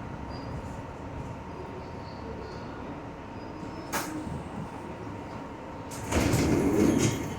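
R62 subway train running steadily, heard from on board, with a sharp click about four seconds in and a louder burst of noise lasting about a second near the end.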